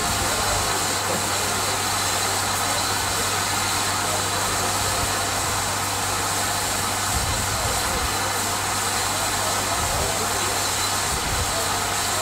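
Steam locomotive 34027 Taw Valley, a rebuilt Bulleid West Country class Pacific, standing with steam escaping from the boiler in a steady even hiss, with a steady low hum underneath.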